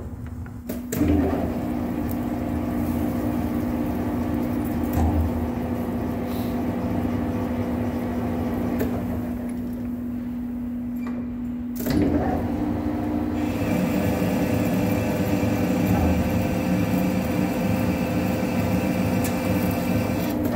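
Hafco TM-26120G centre lathe running under a single-point threading cut on a 6-inch induction-hardened chrome bar: a steady motor and gearbox hum with the tool cutting, growing louder about a second in and again about twelve seconds in as the cut picks up.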